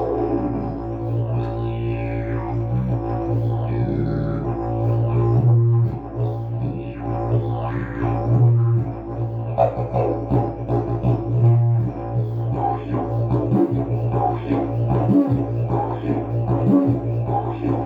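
Agave slide didgeridoo played as a continuous low drone, its aluminium slide tube extended for a very low key. Shifting, vowel-like overtones sweep above the drone. The sound breaks briefly a few times, and the breaks come in a rhythmic pattern in the second half.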